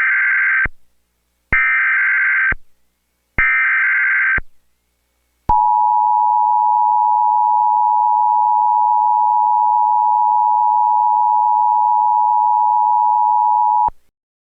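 Emergency Alert System tones. Three short bursts of screechy data tones (the SAME header) come about a second apart, then the steady two-tone attention signal is held for about eight seconds and cuts off sharply.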